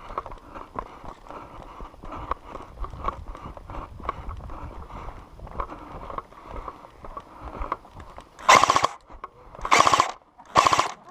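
Footsteps and shuffling of gear, then three short bursts of an airsoft gun firing on full auto, the first about eight and a half seconds in.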